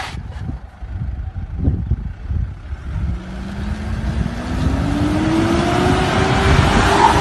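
SUV engine accelerating: its note rises steadily over the last few seconds as the vehicle drives in close, over a low rumble.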